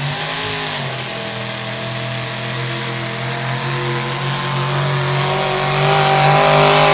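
Lifted pickup mud-racing truck's engine at full throttle: it revs up sharply at the launch, then holds at high revs as the truck charges through the mud, louder near the end as it comes closer.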